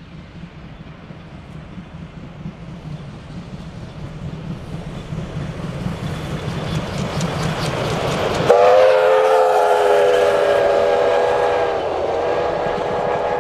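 Victorian Railways D3-class 4-6-0 steam locomotive passing at speed, its running and rail clatter growing louder as it approaches. About eight seconds in it sounds a loud, chord-like steam whistle, held for about five seconds with a brief dip near the end.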